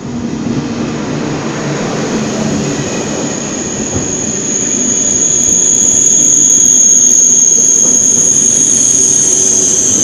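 TGV high-speed train pulling in and braking as its cars pass close by: a rumble of wheels on the rails and a steady high-pitched squeal that grows louder from about halfway through.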